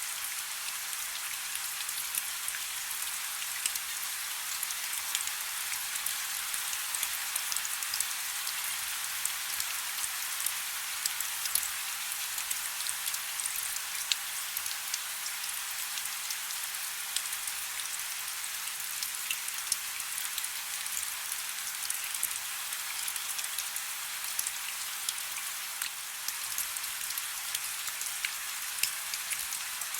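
Steady soft rain: an even hiss with many small, sharp drop ticks scattered through it.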